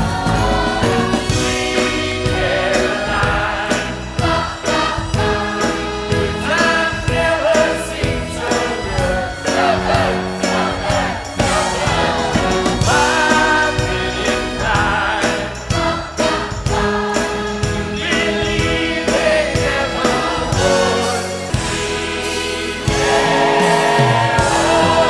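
Show music: a choir of voices singing over a steady drum beat.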